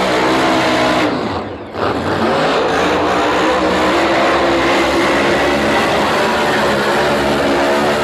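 Drag racing car's engine running loud at high revs, largely steady in pitch, with a brief drop in loudness about a second and a half in.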